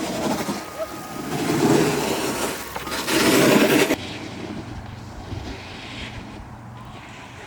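Rushing wind on the microphone mixed with the rolling rumble of board wheels on pavement. It comes in loud swells for about four seconds, then drops suddenly to a quieter, steadier rumble.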